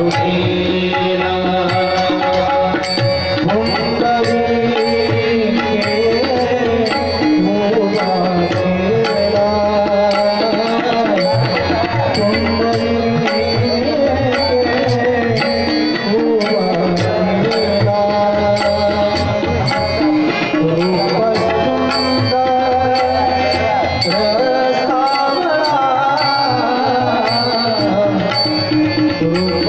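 Tabla and harmonium playing devotional bhajan music, a steady drum rhythm under a continuous wandering melody.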